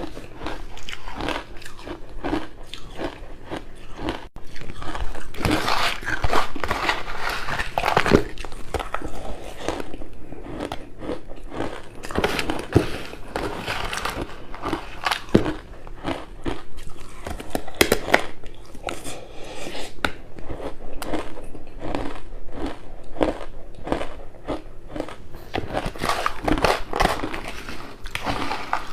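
Close-up crunching of pink ice: repeated bites and chewing, a dense run of irregular crackling cracks throughout.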